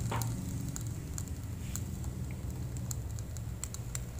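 Beaten egg cooking on banana leaves in a hot wok without oil, giving scattered light crackles and ticks over a steady low hum.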